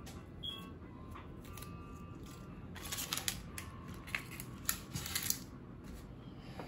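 Dry, papery onion skin crackling and rustling as it is peeled off a white onion by hand, with a burst of sharper crackles a few seconds in.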